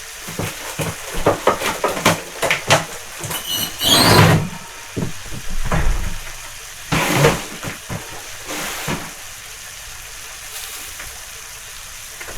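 Kitchen utensils clicking and knocking against a pan of pasta, with two louder scraping bursts about four and seven seconds in, as the pasta is stirred and handled.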